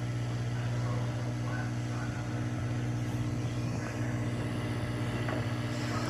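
Microwave oven running: a steady low electrical hum.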